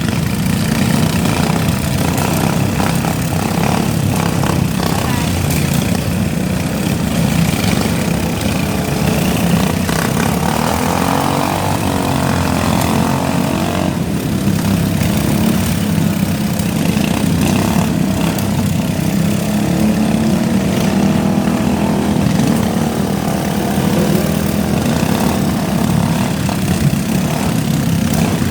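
Riding lawn mower engines running together in a steady, dense drone.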